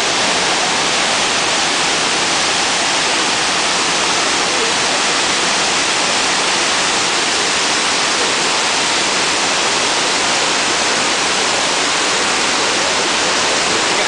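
Steady, loud rush of a waterfall and the fast, shallow stream below it splashing over rocks, an unbroken hiss with no change in level.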